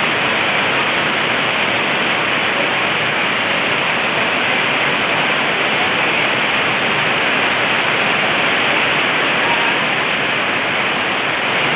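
Heavy typhoon rain in a steady, unbroken downpour.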